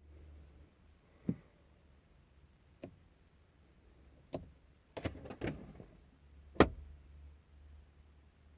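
A series of sharp clicks and knocks: single ones about a second, three and four seconds in, a quick cluster around five seconds, and the loudest about six and a half seconds in. A low steady hum runs underneath.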